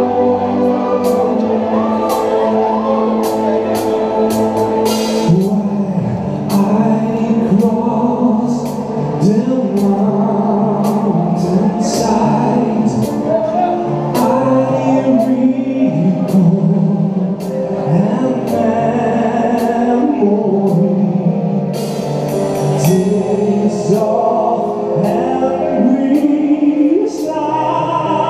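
A live symphonic metal band playing: a male voice sings long notes over the band, with drum and cymbal hits cutting through.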